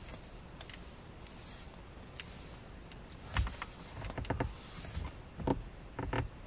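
A microfiber cloth wiping and rubbing over a car's dashboard touchscreen. It is faint at first, then gives a run of irregular short rubbing and brushing strokes in the second half.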